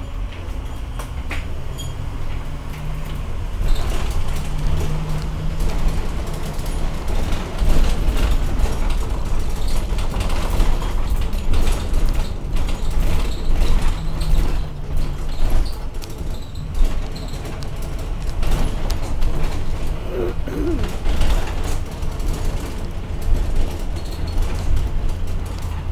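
Cabin of a moving paratransit minibus: a steady low road-and-engine rumble under constant rattling, knocking and creaking from the bus body as it rolls over the street.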